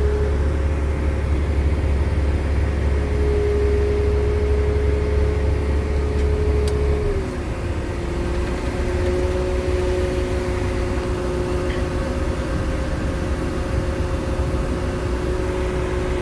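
SmartROC D65 MK2 drill rig running steadily, engine and hydraulics humming. About seven seconds in, the deep rumble eases and the hum's pitch steps down a little, then holds.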